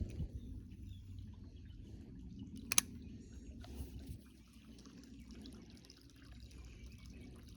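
Creek water trickling faintly under a low rumble, with one sharp click a little under three seconds in.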